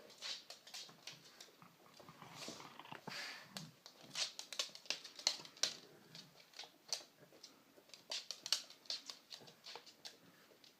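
A pug making her odd noise with a bone: a rapid, irregular run of short clicks. Her owners take it for excitement at having finally got the bone.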